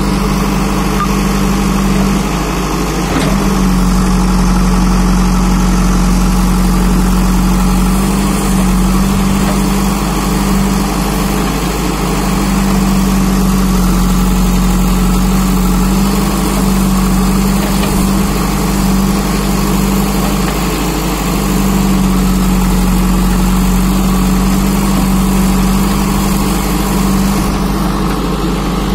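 JCB 3DX backhoe loader's diesel engine running steadily while the backhoe arm digs soil, its note wavering briefly every few seconds.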